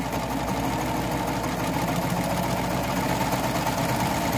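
BabyLock Triumph serger running steadily at a moderate speed, stitching a seam and trimming the fabric edge.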